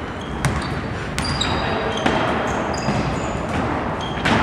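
Basketball game on an indoor court: the ball bouncing with a few sharp knocks, and sneakers squeaking on the floor in short high chirps, over steady hall noise.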